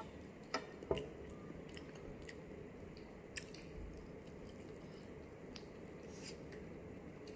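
Metal fork and spoon clink against a plate twice, about half a second and a second in, then quiet eating noises with a few faint small clicks.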